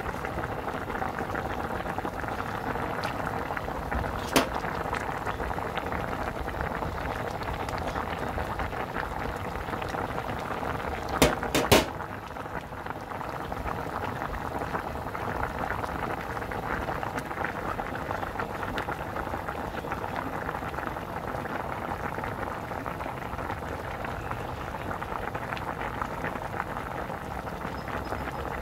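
A pot of spicy broth with whole abalone in it boiling hard, a steady bubbling and popping. A sharp click about four seconds in and three quick, louder clicks about eleven seconds in stand out over it.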